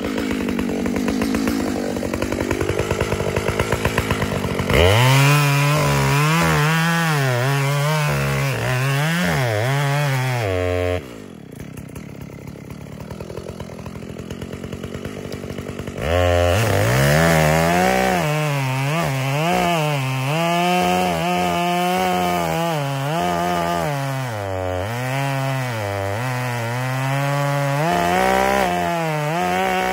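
Makita (Sachs Dolmar) chainsaw idling, then revving up about five seconds in and cutting into the trunk of a big maple tree, its pitch dipping and rising as the chain bogs and recovers in the wood. About eleven seconds in it drops back to idle, then revs up and cuts again about five seconds later.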